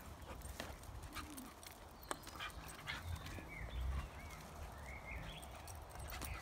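A dog scrabbling and leaping on bare dirt under a rope swing: scattered sharp clicks and light thuds of its paws, over a steady low rumble.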